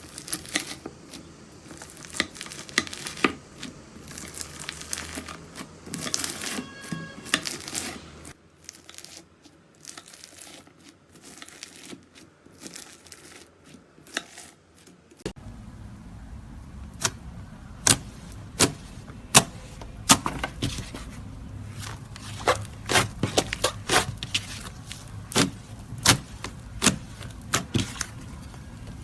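Hands squishing and stretching slime, giving a string of sharp sticky clicks and crackly pops. The sound changes abruptly twice, about eight and fifteen seconds in, as one slime clip gives way to the next.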